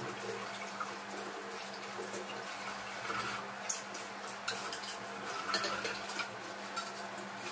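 Tap water running into a stainless-steel sink as steel pots are rinsed, with a few sharp clinks of the metal utensils knocking against each other and the sink.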